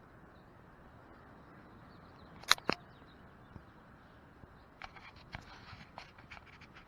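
Handling noise on the camera: two loud sharp clicks about two and a half seconds in, then a run of lighter ticks and taps near the end, over a faint steady background.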